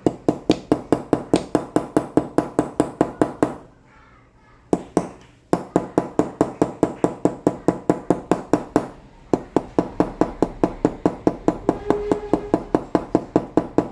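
Small hammer tapping rapidly on the steel jaws of a cuticle nipper laid on a hammer head used as an anvil: ringing metallic taps, about five a second, in three runs with short pauses about four and nine seconds in. The jaws are being hammered where there is a large nick.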